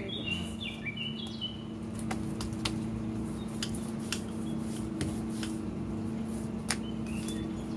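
Hands pressing and spreading oiled parotta dough on a stone counter, with a few short scattered taps. A steady low hum runs underneath, and birds chirp briefly in the first second and a half.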